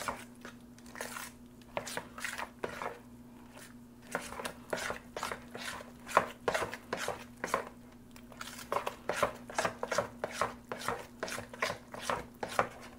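A spoon stirring wet conch fritter batter in a plastic mixing bowl, making quick repeated scraping, slapping strokes. The strokes are sparse at first and come about three a second from about four seconds in.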